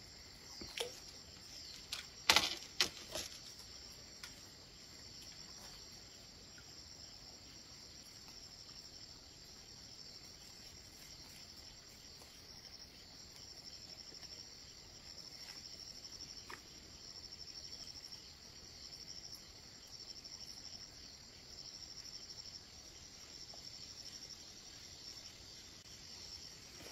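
Insects chirping in a steady, high-pitched, pulsing trill, with a few sharp knocks in the first three seconds.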